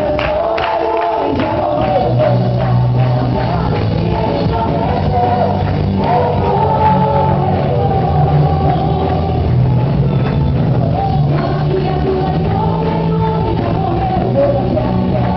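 Live gospel worship music: voices singing together over a band with a sustained bass line.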